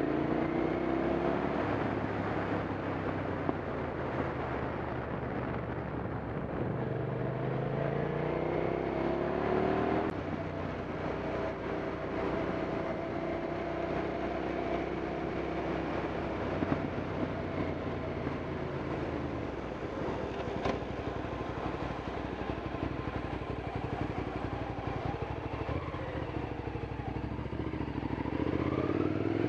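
Hyosung sport motorcycle engine running at low speed, its pitch rising and falling a few times as the rider opens and eases the throttle, with a steady rush of wind and road noise.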